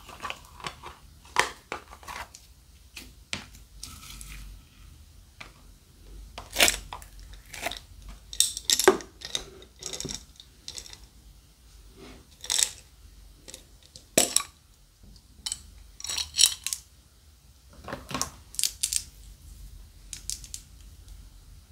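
Irregular clicks, taps and short rattles of small hard plastic and glass objects being handled: a plastic slime tub, a plastic bottle charm and tiny vials of beads and glitter knocking together and against a glass bowl.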